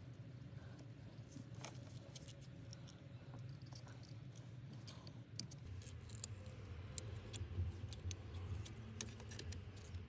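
Small scattered clicks and scratches of fingers and pliers handling copper wire and the plastic vent-control dial, more frequent in the second half, over a faint steady low hum.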